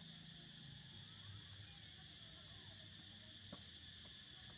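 Faint, steady high-pitched chorus of insects such as crickets, with one light click about three and a half seconds in.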